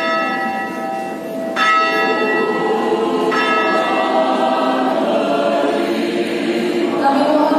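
A bell tolling as a funeral toll, struck twice about 1.7 seconds apart and ringing on over a choir singing; after the second strike, near the middle, the choir carries on alone, louder toward the end.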